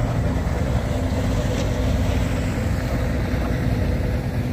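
2013 Tohatsu M70C two-stroke outboard motor running steadily under way, a constant low engine drone.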